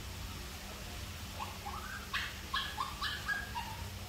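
An animal giving about ten short, high, rising squeaks or yelps in quick succession, starting about a second and a half in.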